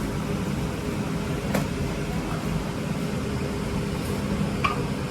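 Steady mechanical hum of a fan or blower, with a sharp click about a second and a half in and a short high clink near the end.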